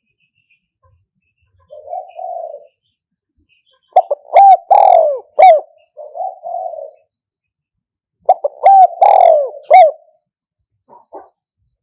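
Spotted dove cooing: two loud phrases of hooked coos about four seconds apart, with softer, lower coos between them. It is the bird's advertising call, recorded for use as a lure to draw in wild doves.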